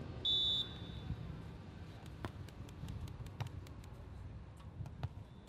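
A referee's whistle is blown once, a short steady high blast about a third of a second in. After it come a few faint, sharp taps over a low background rumble.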